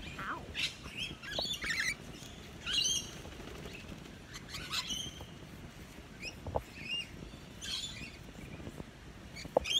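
Rainbow lorikeets giving short, scattered screeches and chirps while they feed on apple, with a few sharp clicks among the calls.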